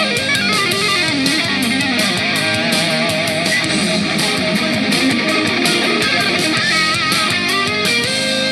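Guitar-led music played back through an Anker Soundcore Mini 2 portable Bluetooth speaker as a sound test, steady and loud.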